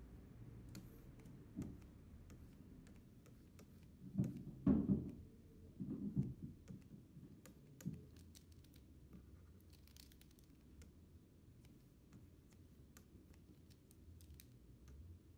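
Faint taps and clicks of a stylus on a pen display's screen while drawing, with a few dull thumps in the first half, the loudest about five seconds in.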